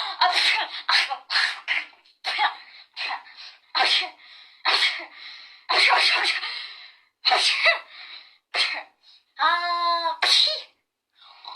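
A rapid run of many short, theatrical human sneezes one after another, more than a dozen in all, each done in a different style. About ten seconds in comes one longer, high-pitched voiced sneeze.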